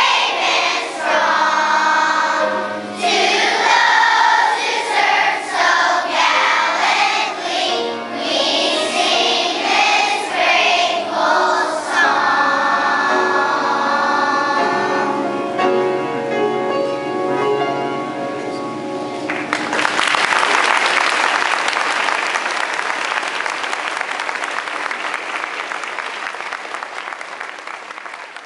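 Large children's choir singing, with the song ending on a long held chord. Applause then breaks out about two-thirds of the way in and fades near the end.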